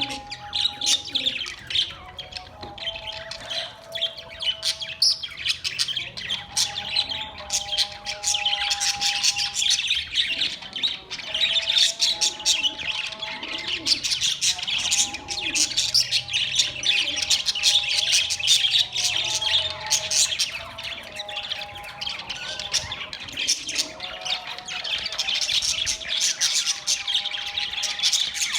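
A group of caged budgerigars chirping and chattering, a busy, unbroken stream of quick high warbles and squawks.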